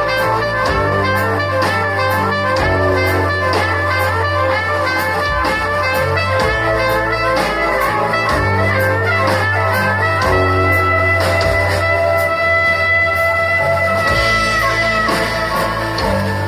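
Live band playing instrumental music: a steady bass line and drums under a lead instrument, which holds long notes from about ten to fourteen seconds in.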